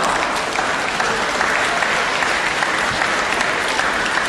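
Spectators in a sports hall applauding steadily at the end of a table tennis rally.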